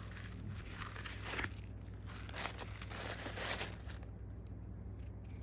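Crinkling and rustling of shoe-box packaging being handled, in irregular bursts that die away about four seconds in.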